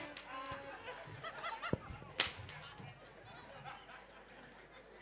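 A whip cracks once, sharply, about two seconds in, with a duller knock just before it. Faint audience chatter and laughter run underneath.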